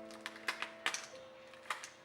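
Background music with a held chord, over half a dozen sharp, irregular light clicks and taps.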